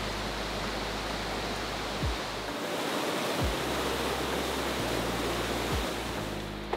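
Rushing white water of a mountain river, a steady rush of noise, under background music with a low bass line and a few deep drum beats.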